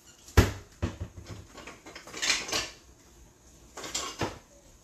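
Knocks and clatter from a lower kitchen cabinet being opened and searched: a sharp knock about half a second in, the loudest, a lighter one just after, some rattling of things being moved about two seconds in, and another knock near the end.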